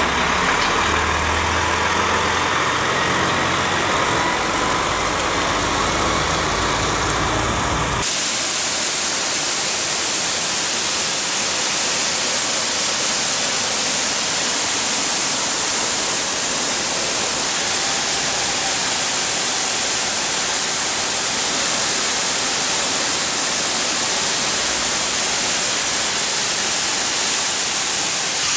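Cappellotto CapStreet road-line cleaning truck at work: the truck's engine running under a noisy working sound, then, about eight seconds in, an abrupt switch to a steady, loud hiss from the suction cleaning head on the road.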